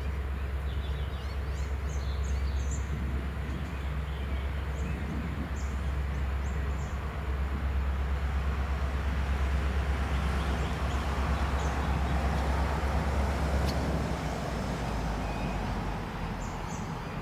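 G class diesel locomotives hauling a train of empty grain hoppers toward the listener: a steady low engine rumble, with wheel and rail noise building through the middle. Birds chirp now and then.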